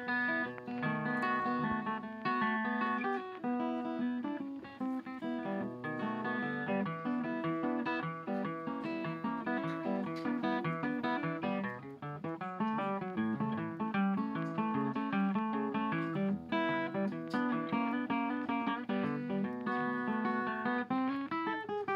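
Background music: acoustic guitar playing a plucked, continuously moving melody.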